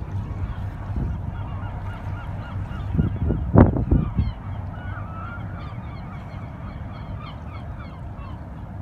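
A flock of birds calling over and over in short quick calls, over a steady low rumble of ship engines. A brief louder rush comes about three and a half seconds in.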